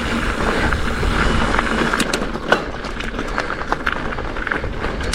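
Specialized Fuse hardtail mountain bike ridden on a dirt trail: steady wind rush and low rumble over the camera, tyre noise, and a few sharp rattles of the bike about two seconds in and near the end.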